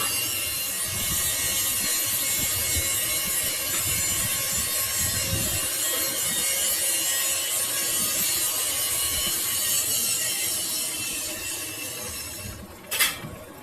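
Steel shaft being cut on a lathe: a steady metal-cutting scrape that fades away near the end, followed by a single sharp click.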